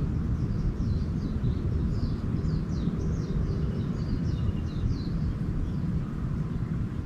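Small birds chirping in a rapid run of short, falling notes that fades out about two-thirds of the way through, over a steady low rumble.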